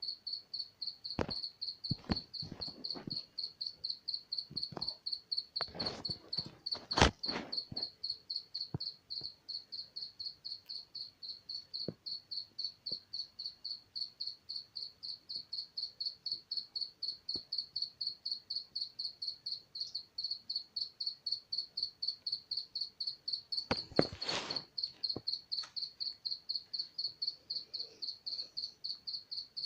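Cricket chirping steadily in even, high-pitched pulses, about three chirps a second; it is hard to locate and seems to move about the room. A few knocks and bumps come about a second in, around six to seven seconds in (the loudest), and again near the end.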